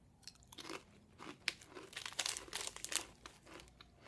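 Medifast sea salt and olive oil veggie chip being bitten and chewed: a run of irregular crisp crunches, loudest in the middle and thinning out near the end.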